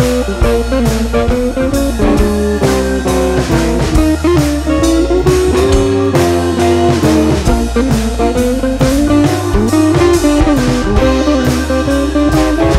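Upbeat instrumental theme music led by guitar over a steady drum-kit beat.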